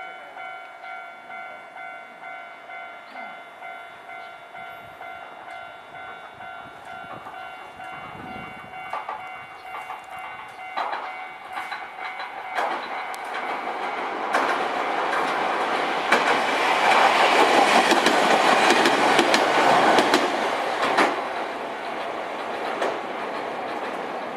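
Level-crossing warning bell ringing in a steady two-a-second beat, then a Wakayama Electric Railway Kishigawa Line electric train running over the crossing. The train is loudest from about 16 to 20 seconds in, with its wheels clicking over the rail joints, and fades toward the end.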